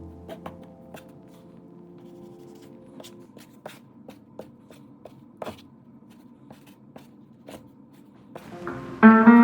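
Scattered faint clicks and ticks, a few each second, as the held tones of ambient music die away. Plucked guitar music starts loudly near the end.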